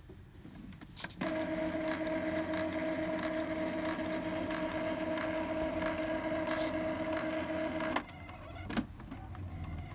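Epson L3150 ink-tank printer's internal motor running a steady pitched whine during a Power Cleaning cycle, which draws ink through the tubes and print head to clear clogged nozzles. The whine starts about a second in, cuts off suddenly about eight seconds in, and is followed by a short click.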